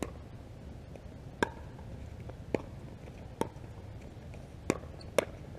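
Pickleball paddles hitting the hard plastic ball in a rally: five sharp pocks, roughly a second apart, the last two closer together.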